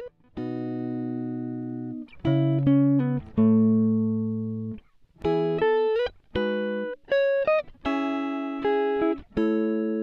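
Background music: a string of about a dozen chords, each starting sharply and fading out.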